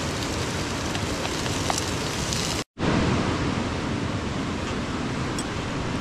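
Steady rushing of a mountain stream, with a few faint clicks on top. It drops out for an instant a little before halfway.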